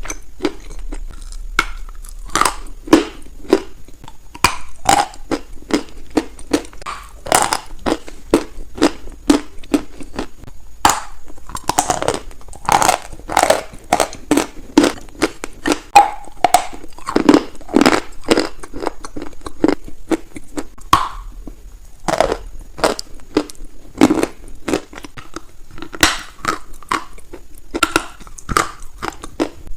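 Crunchy baked clay being bitten and chewed close to the microphone: sharp, irregular crunches, several a second, continuing throughout.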